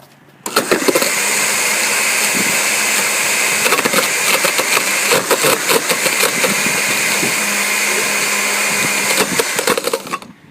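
Oster blender motor running at full speed with an aluminium Coke can inside, the metal clattering and grinding against the jar. It starts about half a second in and cuts off just before the end.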